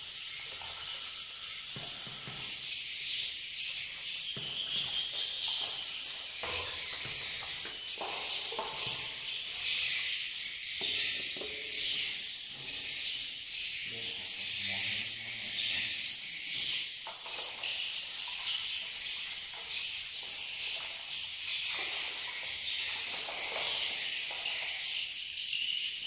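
High, repeating chirps of swiftlets fill the swiftlet house, a bit more than one a second and unbroken. Beneath them is the irregular splashing and clatter of a mist humidifier's parts being washed by hand in a metal pan of water.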